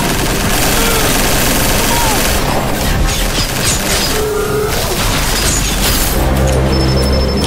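Film soundtrack: music mixed with heavy booms and crashing debris as a giant robot collapses into metal wreckage.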